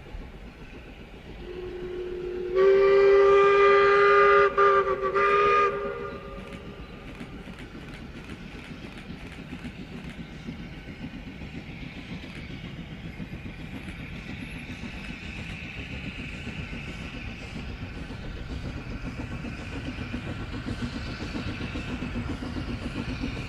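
Steam locomotive whistle: one long blast that slides up in pitch as it opens, then a short second blast. After it the train runs on steadily with a rhythmic beat, growing slowly louder.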